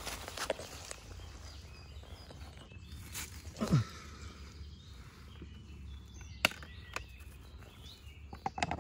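Footsteps and rustling in grass around a plastic laundry basket, with a few sharp clicks and knocks. A short sound falling steeply in pitch comes about four seconds in, and faint bird calls are behind.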